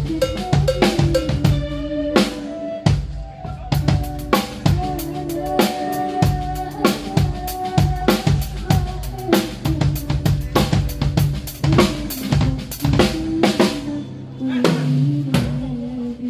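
A drum kit played in a steady groove, with bass drum, snare and cymbal hits, over held pitched notes that change every second or so, as in a band running through a sound check.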